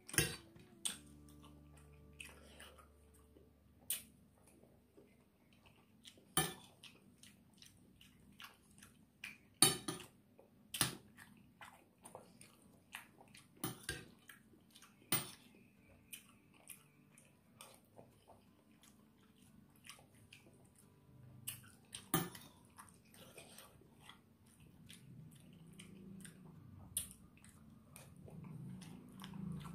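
Metal spoon clinking and scraping against a plate of rice, in sharp, irregular strokes every second or few seconds, with soft chewing between them.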